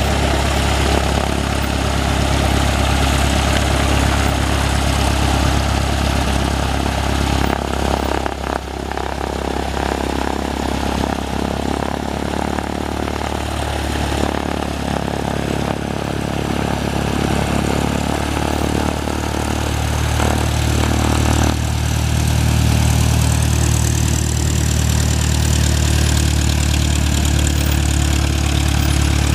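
Cessna 172S Skyhawk's four-cylinder piston engine and propeller running steadily, its note shifting about a third of the way in and again about two-thirds in, then a little louder.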